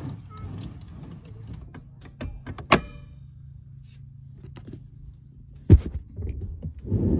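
Minivan seat mechanism being worked: clicks from the latch and slide rail, a sharp ringing metal clack about three seconds in and a heavy thunk nearly six seconds in, then louder knocking and rustling near the end, over a steady low hum.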